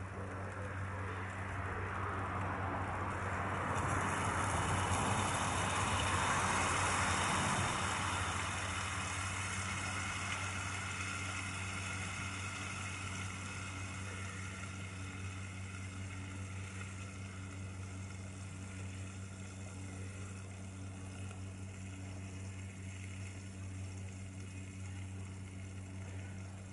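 Steady hiss of a portable gas canister stove burning under a lidded frying pan, over a low steady hum. The hiss swells a couple of seconds in, holds for a few seconds, then slowly eases.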